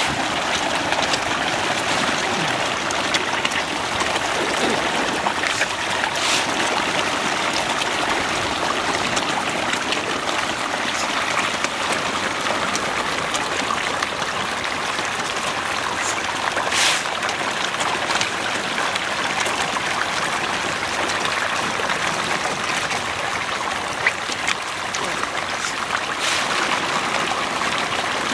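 A dense shoal of farmed tilapia churning and splashing at a pond's surface in a feeding frenzy: a steady splashing hiss, with a few sharper splashes standing out.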